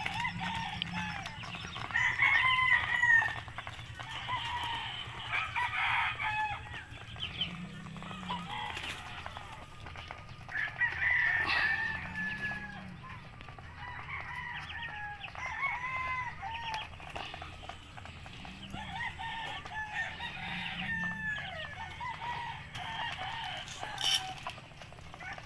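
Poultry clucking and calling repeatedly, in short pitched calls, over a low steady hum.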